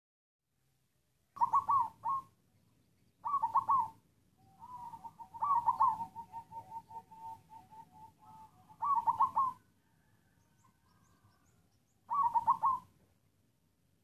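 Black zebra dove (perkutut) cooing in a coughing, halting way: five short bursts of rapid stuttered coos, with a longer run of quick, evenly spaced notes in the middle.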